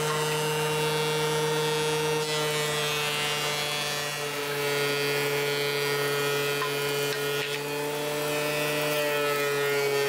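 DeWalt benchtop thickness planer running, planing hardwood strips down to final thickness: a steady motor and cutterhead whine whose pitch drops slightly about four seconds in.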